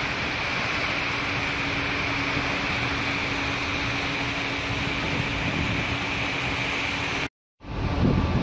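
Steady rushing of a container ship's propeller wash churning astern, under a steady mechanical hum from the ship. It cuts off suddenly about seven seconds in, and music starts just before the end.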